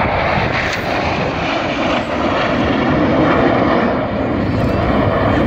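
Jet engines of a formation of military display jets flying past low, a loud steady rushing roar.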